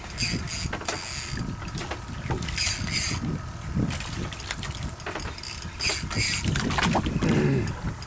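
A fishing reel working while a hooked fish is still fighting: several short bursts of high-pitched whirring from the reel's mechanism, over a low steady rumble.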